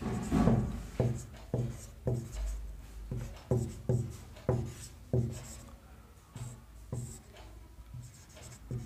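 Marker pen writing on a whiteboard: a run of short scratchy strokes, about two a second, growing fainter in the last few seconds.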